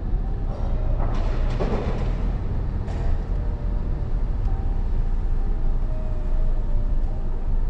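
Car being driven slowly, heard from inside the cabin: a steady low engine and road rumble, with a short rushing noise between about one and two seconds in.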